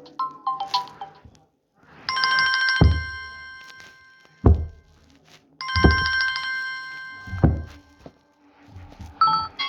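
Samsung Galaxy A14 ringtone playing: a bright chiming chord that rings for about two seconds, sounded twice a few seconds apart, each time with deep low thuds under it. A few short notes come just before it, and a different, quicker melody begins near the end.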